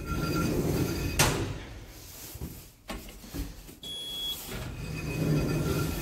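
Lift doors sliding with a steady motor whine and rumble, shutting with a sharp clack about a second in. A short high beep sounds around four seconds, and the whine and rumble return near the end.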